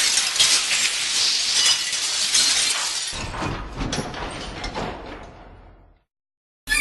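Glass breaking: a loud crash of shards that keeps clattering and tinkling as the pieces fall and settle, slowly dying away. It ends about six seconds in.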